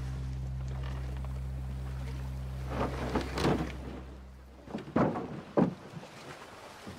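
Oars of a wooden rowing boat splashing and knocking in the water: a flurry of strokes about halfway through and two sharp strokes near the end. Under it a low steady drone, held from the film's score, fades out about two-thirds of the way in.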